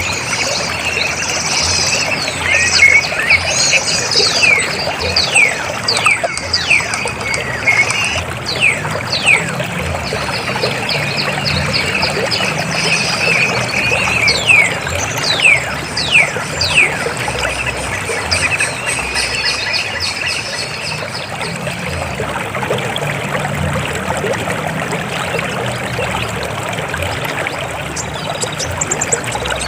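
River water flowing and gurgling in a steady rush, with many short, falling, high-pitched chirps or splashes over it, mostly in the first half.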